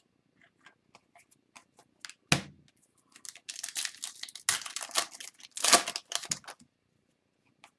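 Hockey trading cards being handled. Light scattered clicks, a sharp knock about two seconds in, then a few seconds of cards sliding and rustling against each other.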